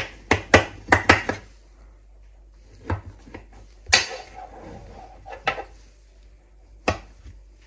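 Paring knife blade clicking and knocking against a metal baking tray while cutting a sponge cake in it: a quick run of clicks in the first second and a half, then single knocks about a second apart, the loudest about four seconds in.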